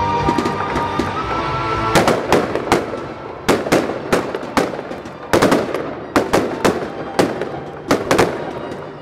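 Aerial firework shells bursting in a rapid series of loud, sharp bangs, several a second in clusters, starting about two seconds in.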